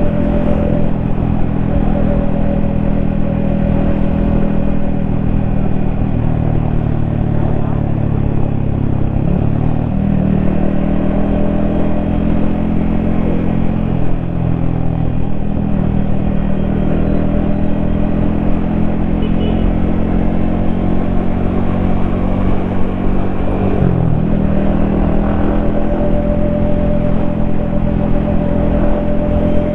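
Yamaha XSR155's single-cylinder engine running steadily as the motorcycle rides along, heard from a helmet-mounted camera. The engine note dips and picks back up twice, about ten seconds in and again near twenty-four seconds.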